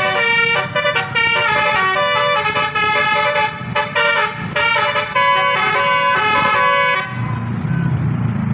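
Bus's multi-tone basuri air horn playing a telolet tune of short stepped notes, then cutting off about seven seconds in, leaving a low rumble.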